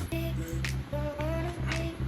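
Background music: a melody over a pulsing bass line.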